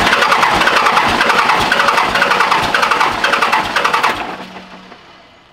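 Cummins diesel engine cranking on its starter motor with a fast, even pulse of compression strokes, turning over without catching. The cranking stops about four seconds in and the sound dies away.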